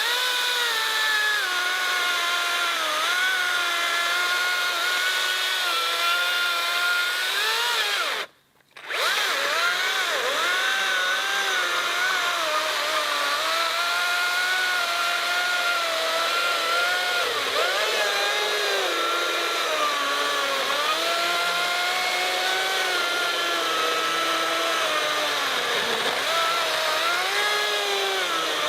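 Makita 36V cordless chainsaw cutting through a pine log. The electric motor's whine sags and recovers in pitch as the chain bogs down in the wood. It cuts out abruptly for about half a second, about eight seconds in, then runs on.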